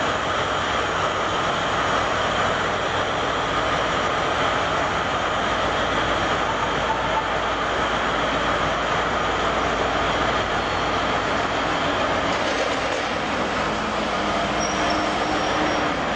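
Giant LeTourneau diesel-electric wheel loader running and slowly manoeuvring, a loud, steady engine drone with a faint whine, echoing in a large hall.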